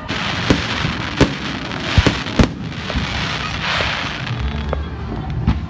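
Aerial fireworks shells bursting overhead: sharp bangs, four louder ones in the first two and a half seconds, with a fizzing crackle of the bursting stars swelling and fading between them.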